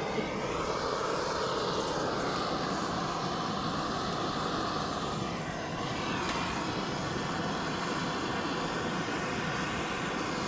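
Steady rushing of a river's flowing water, holding an even level throughout.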